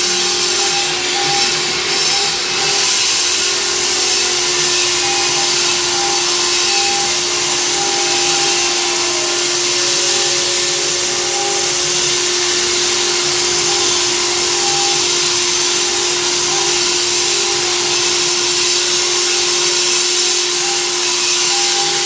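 Stone-carving CNC router running steadily: a constant hum over even, loud noise, with a fainter higher tone that comes and goes.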